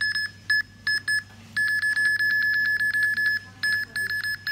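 Rugged Android tablet's barcode-scanning app beeping as its camera decodes barcodes, one short high beep per successful read. A few separate beeps come first, then a fast, almost unbroken string of beeps from a little over a second in, with a short break near the end.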